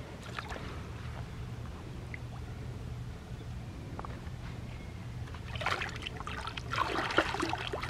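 Snook being revived and released in shallow water: light water sloshing around the held fish, then a run of splashes starting a little over halfway through as it kicks free and swims off, over a steady low rumble.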